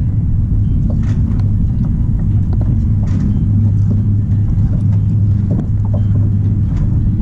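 An engine running steadily nearby, a constant low hum.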